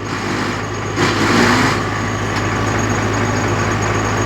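Excavator's diesel engine running, getting louder about a second in as the machine is driven forward.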